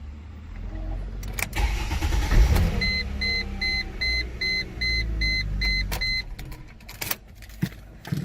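Mercedes-Benz ML350 (W163) V6 cranking and starting, then running steadily at idle: it now starts, with the faulty all-activity module replaced. For about three seconds a dashboard chime beeps about eight times in an even series.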